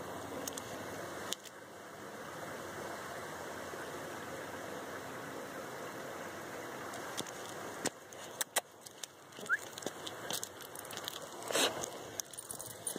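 Steady outdoor background noise, then a scatter of sharp clicks and knocks from the phone being handled and swung about. The loudest knock comes near the end.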